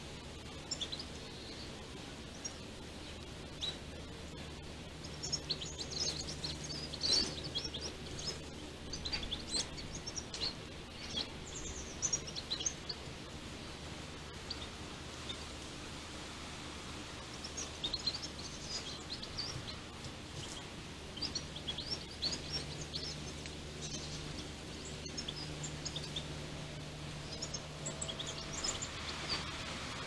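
Birds chirping and calling in scattered short high notes, busiest in two spells, over a steady low background hum.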